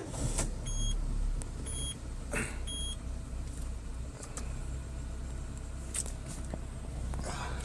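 Car engine started and running at a steady idle. In the first few seconds come three short dashboard warning beeps about a second apart, and a few faint clicks.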